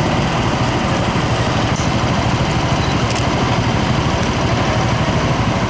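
Parked fire engines' diesel engines idling, a steady low rumble that does not change.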